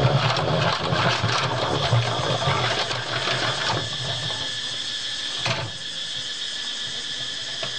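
Hand-cranked stainless-steel honey extractor spinning honeycomb frames, its crank gears whirring and rattling, then winding down about four seconds in. A single knock follows a little later as the frames are handled.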